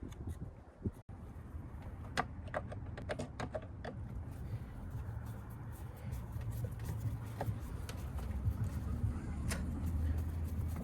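Light clicks and rattles of plastic engine-bay parts being handled and fitted, with a quick run of clicks about two seconds in and a single click near the end, over a steady low rumble.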